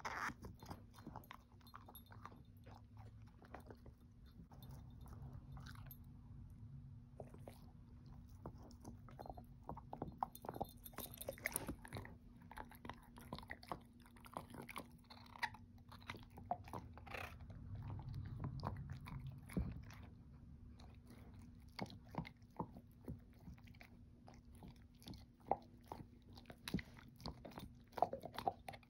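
A shepherd-mix dog gnawing and chewing a hard, long-lasting "everlasting" chew treat, with irregular clicks and crunches of teeth on the treat.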